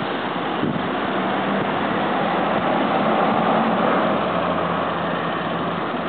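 A city bus's engine running as it passes close ahead, over street traffic noise, growing louder about three seconds in.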